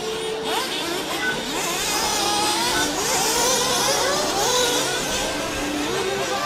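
Several 1/8-scale nitro RC buggy engines racing together, each revving up and falling back in overlapping rising and falling whines, a little louder in the middle.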